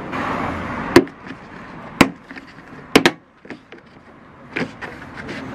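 A brief rustle, then sharp knocks or clicks about a second apart, the third a quick double knock, with fainter ticks between them.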